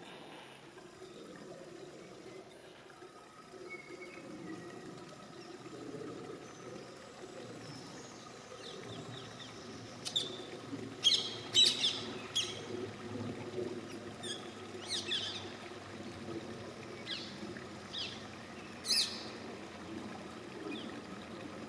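Rose-ringed parakeets calling in short, sharp, high squawks, starting about halfway through and coming in quick bunches, with the loudest calls a little past the middle. Under them runs a steady trickle of flowing water.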